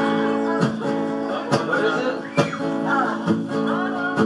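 Acoustic guitar strummed live, chords ringing between strokes that come a little under once a second.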